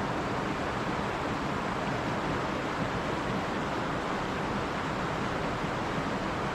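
River water rushing, a steady even whoosh with no change.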